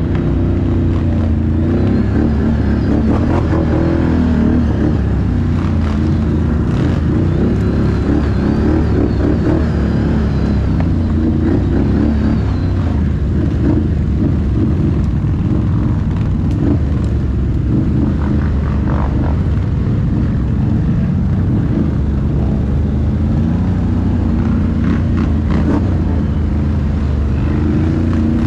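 Can-Am ATV's Rotax V-twin engine running continuously, its note rising and falling a little.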